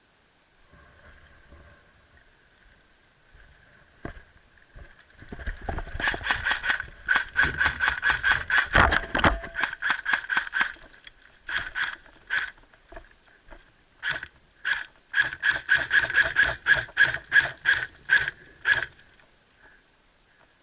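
Airsoft gun firing strings of rapid shots, about five a second, with short pauses between strings.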